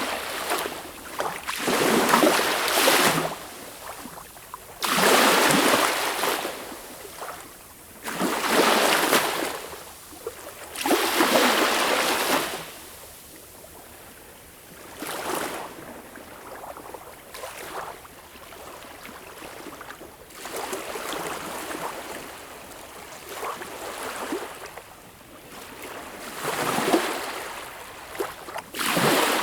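Sea waves breaking and washing up, in surges roughly every three seconds, settling into a quieter, steadier wash through the middle before another wave breaks near the end.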